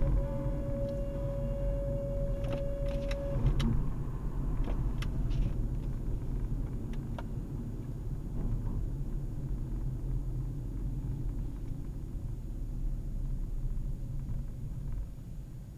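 Car running with a steady low rumble. A steady whine is heard for about the first three seconds, and several sharp clicks or ticks come between about two and seven seconds in.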